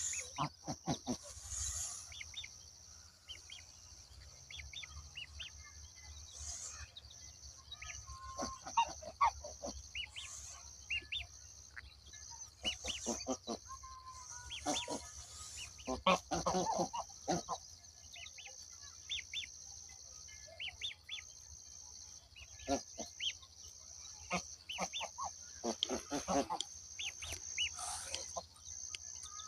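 Farmyard poultry calling: short high peeps and clucks scattered throughout, with louder, harsher calls about 16 and 26 seconds in, over a steady high-pitched drone.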